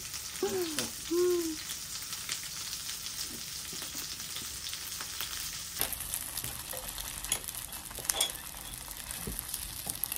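Food sizzling in hot oil in a frying pan: meat patties, then egg-battered zucchini slices (hobak-jeon) frying. In the second half there are light clicks and taps as the slices are turned with chopsticks and a spatula.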